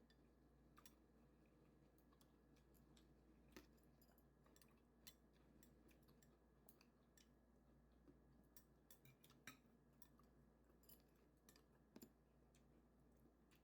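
Near silence with faint, scattered small clicks and smacks of people eating: chewing and utensils on dishes.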